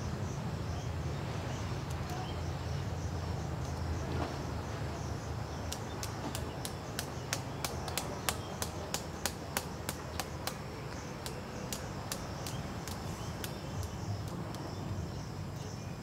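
Sharp clicks of pliers working on electric cable wires, an irregular run of them, about two to three a second, from about six to thirteen seconds in, over a steady low background rumble.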